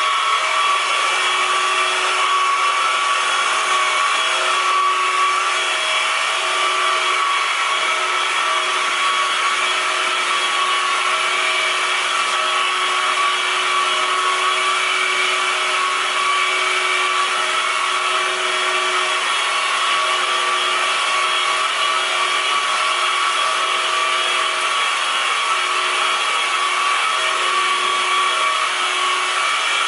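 Steady droning noise with several constant whining tones, holding the same level throughout, like a running motor or appliance.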